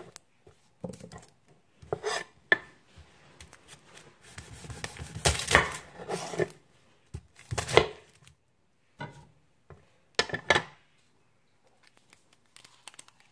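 Knife slicing an onion: a scattered series of short knocks and clicks, with some rustling between them.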